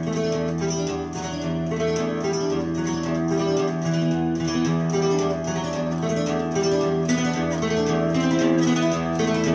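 Recorded music led by plucked acoustic guitar, with sustained changing notes over a steady low bass, played through a 2-watt 13JZ8 tube amplifier into 1959 Phonola 10.2-inch radio speakers.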